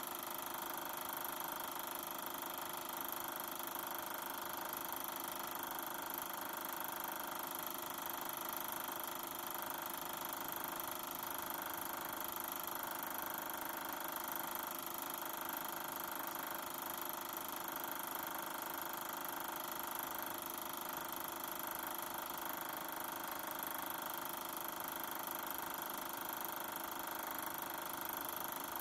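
Super 8 film projector running, a steady mechanical whir from its motor and film transport with no soundtrack playing.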